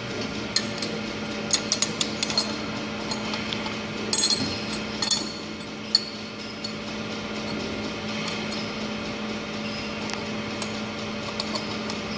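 Steel brake-pad backing plates clinking as they are set by hand into a metal press mould, a string of sharp clinks, thickest in the first half, over a steady low machine hum.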